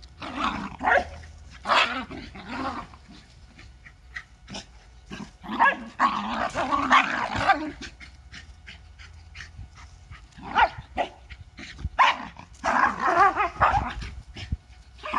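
Two Lakeland terriers growling and barking as they play-fight, in several bursts. The longest burst comes about six seconds in.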